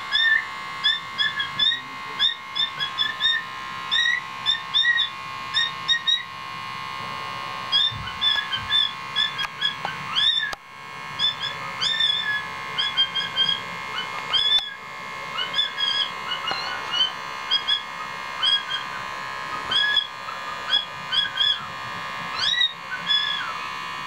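Cockatiel chirping and warbling in quick runs of short, rising whistled notes, with a brief pause about halfway through, over a steady high background hum.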